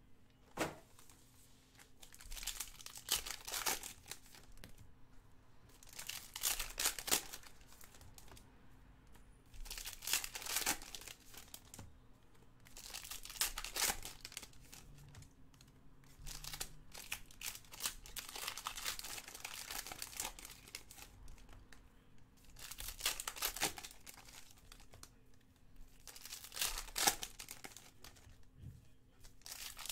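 Foil trading-card pack wrappers being torn open and crinkled by hand, in noisy bursts every few seconds with quieter card handling between.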